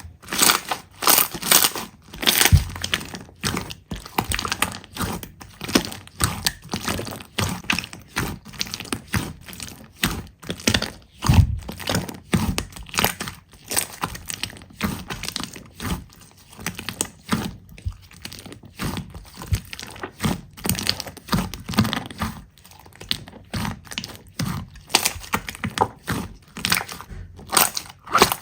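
Slime being squeezed and pressed, giving a continuous run of crunchy crackles and pops, several a second and uneven in loudness.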